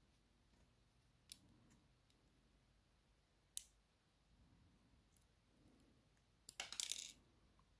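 Faint clicks of steel tweezers and small metal lock pins being handled at the plug of a pin-tumbler cylinder as its pins are taken out: a light click a little over a second in, a sharper one about three and a half seconds in, and a quick run of clicks lasting under a second near the end.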